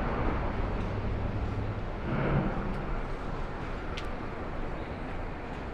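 City street background: a steady rumble of traffic and urban noise, with a brief sharp click about four seconds in.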